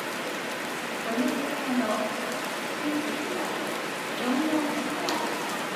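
Steady rain falling, an even hiss, with faint voices underneath.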